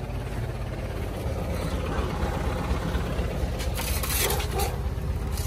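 Delivery truck's engine running with a steady low rumble. A brief scraping rustle comes about four seconds in.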